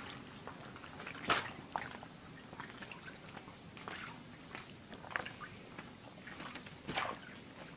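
A cat pawing and scratching at a bedspread: scattered soft scratches and rustles of the cloth, the loudest about a second in and again near the end.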